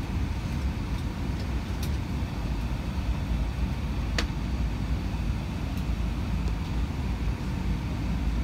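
Steady low rumble of an Airbus A321's cabin on the ground, with a couple of faint clicks, the sharpest about four seconds in.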